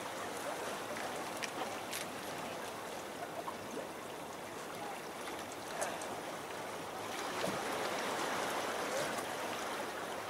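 Water washing against the boulders of a rock jetty, a steady rushing hiss, with a few faint clicks.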